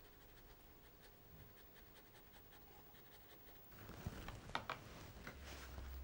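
Faint soft strokes of a paintbrush on textured watercolour paper. About two-thirds of the way in, a louder rustling with a few light clicks comes in.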